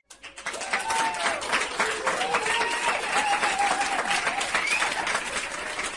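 Applause: many hands clapping in a steady, dense crackle, with a few voices exclaiming over it.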